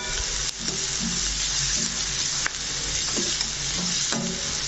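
Chopped onions sizzling in ghee and oil in a metal kadai as they are stirred with a spoon, with a few short scrapes of the spoon against the pan. The onions are being sautéed until they turn light brown.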